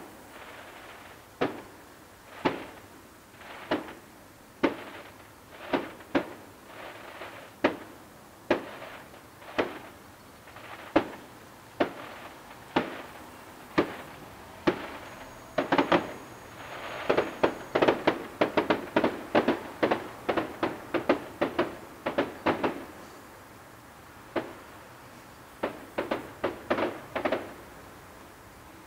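Distant fireworks: aerial shells bursting with sharp bangs, each trailing off in a short echo. The bangs come about once a second at first, then in a rapid volley of many bangs through the middle, and after a pause of a couple of seconds in another short flurry near the end.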